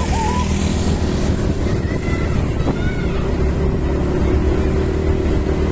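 A motor vehicle's engine running steadily, with road and wind noise. A few faint, short rising tones sound near the start and again about two seconds in.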